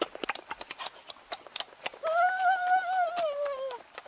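Wet mouth clicks and smacking of someone eating and drinking, with a held 'mmm' hum of a voice for about a second and a half in the middle, dropping in pitch as it ends.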